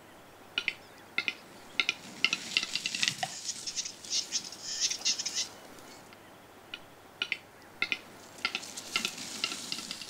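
Male western capercaillie giving its display song, the courtship call of the mating season: dry clicks about half a second apart that speed up into a rattle, then a scraping, hissing whetting phrase in the middle. A new series of clicks starts about two-thirds of the way through and quickens toward the end.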